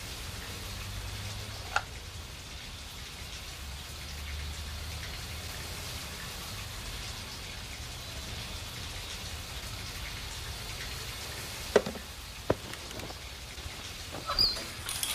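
Steady rain falling, with a few sharp clicks: one about two seconds in, two close together about twelve seconds in, and a small cluster near the end.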